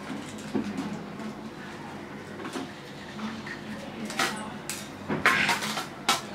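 Handling noises: rustling of a plastic spice packet being opened and light knocks of steel bowls on a stone floor, with a few louder rustles in the second half.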